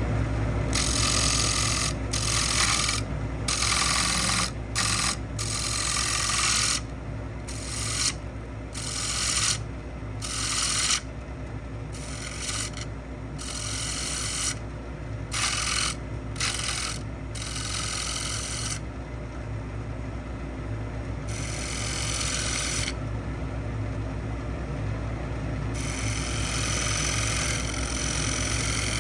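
Wood lathe running with a steady motor hum while a bowl gouge cuts a spinning pecan bowl, the cutting noise coming in short repeated passes of a second or so. There are a couple of longer pauses with only the motor, then a steadier cut near the end.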